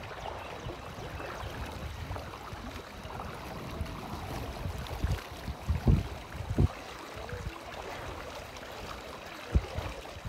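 Water splashing against the side of a small boat as a steady wash, with a few low thumps about six seconds in and again near the end.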